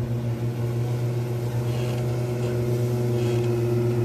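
Motorboat engine running at a steady speed, a constant drone that grows slightly louder toward the end.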